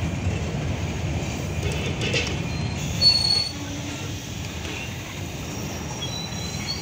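Babaranjang coal train's open freight wagons rolling slowly through a curve: a steady low rumble of steel wheels on the rails, with short high-pitched wheel squeals from the curve, the loudest about three seconds in.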